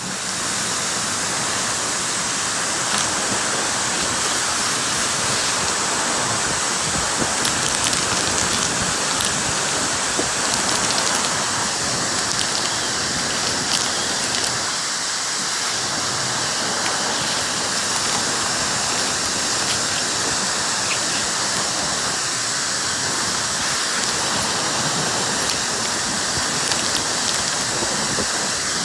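Dyson hair dryer blowing air steadily, a continuous rush of air with a thin high whine over it.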